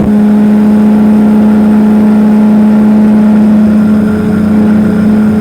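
Powered parachute's engine and propeller running at high, steady power during the takeoff roll: one even engine note that holds its pitch throughout, with a slight dip in loudness about four seconds in.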